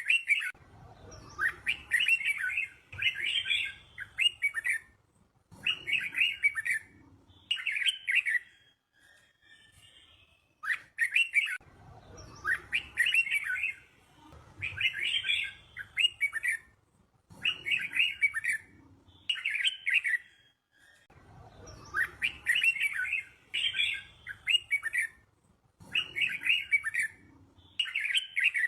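Red-whiskered bulbul singing its chirpy, warbling phrases in quick groups with short pauses between them; the same run of phrases repeats about every ten seconds, as in a looped training song for young birds.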